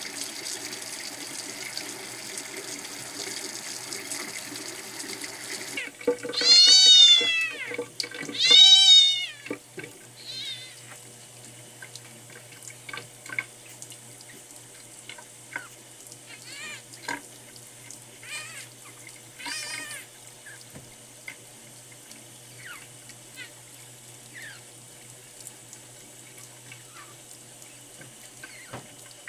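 A kitten about eleven days old cries twice, loudly, with high arched mews about six and a half and eight and a half seconds in, then gives fainter short mews and squeaks. A tap runs steadily into a sink the whole time, louder in the first six seconds.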